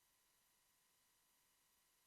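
Near silence: a very faint steady electronic hiss.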